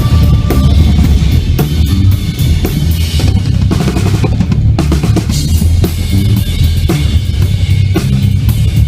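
Loud band music driven by a drum kit, with kick and snare hits over a heavy, moving bass line, played through a sound system during a sound check.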